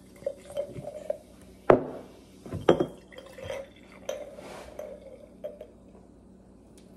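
Sparkling pear cider being poured from a glass bottle into a glass mason jar: intermittent glugging and splashing, with two sharp glass clinks about two and three seconds in.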